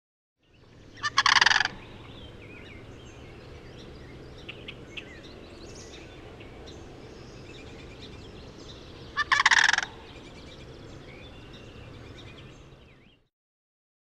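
Turkey gobbling twice, two loud rapid rattling calls about eight seconds apart, over a steady outdoor ambience with faint small-bird chirps. The ambience fades in and out.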